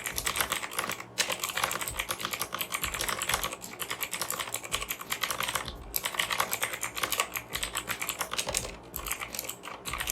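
Fast typing on a mechanical keyboard with clicky blue switches (Fantech Maxcore MK852): a dense run of sharp clicks, loud and tactile, broken by a few short pauses.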